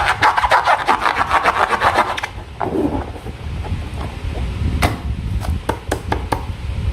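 Hands working slime and balloon materials: dense, rapid crackling and rubbing for about two seconds, then a short falling squeak and scattered single clicks.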